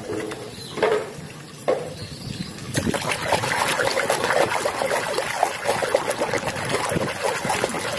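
A hand sloshing and splashing in a plastic tub of muddy water while scrubbing plastic toys. Two brief sounds come in the first two seconds, then continuous splashing starts about three seconds in.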